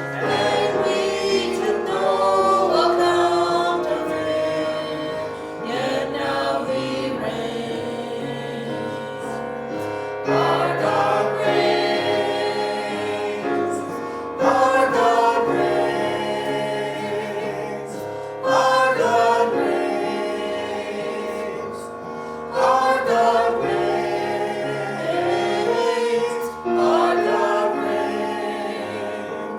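Church worship team singing a praise song together in sung phrases of a few seconds each, over a steady instrumental backing.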